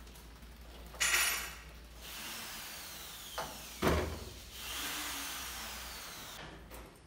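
Pivoting wooden lid of a homemade tipping mouse trap swinging back up over a glass tank and knocking shut, with a loud scrape about a second in and a sharp knock with a low thud near four seconds. A hiss with faint falling whistles follows the knock.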